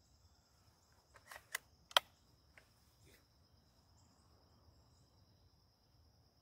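A few sharp metallic clicks from a B3-1 .177 spring-piston air rifle being cocked and loaded, the loudest about two seconds in, followed by two fainter ones. A faint steady high insect trill runs underneath.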